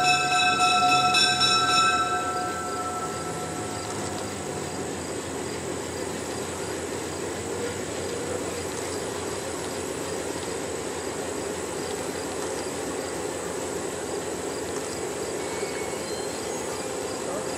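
Diesel locomotive's multi-note air horn ends a blast about two seconds in, then the steady rumble of the approaching diesel-hauled passenger train running toward the bridge.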